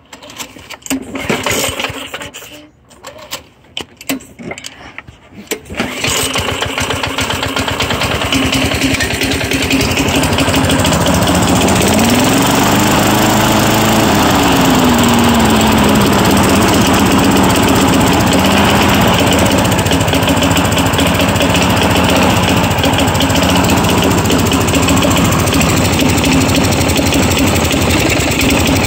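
Craftsman push mower's 4.5 hp Tecumseh single-cylinder engine being started: it sputters unevenly for several seconds, then catches about six seconds in and settles into steady running. Its speed rises and falls back once about midway.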